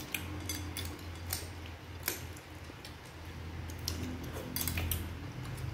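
Metal spoons clinking and scraping against ceramic bowls as people eat, a scatter of light irregular clicks over a steady low hum.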